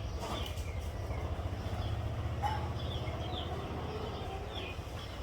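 Birds chirping in short, scattered calls over a steady low rumble of outdoor background noise.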